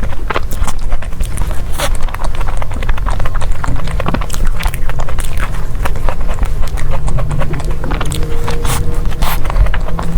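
Close-miked eating sounds: biting and chewing desserts, with many quick irregular wet clicks and smacks over a heavy low rumble.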